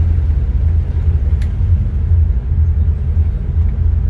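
Boat's MerCruiser 7.4 inboard engine idling at low speed, a steady low rumble.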